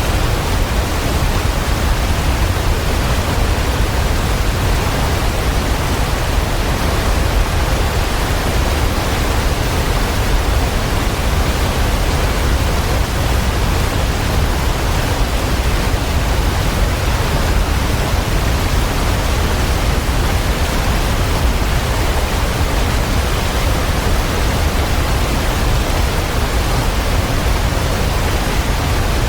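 Waterfall: falling water rushing in a steady, unbroken wash, heaviest in the low rumble.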